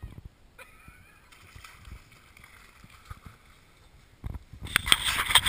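Faint outdoor quiet with a few soft bumps. About four seconds in, a loud crackling rustle starts as tall stiff grass brushes against the camera's microphone, with bumps from the camera being handled.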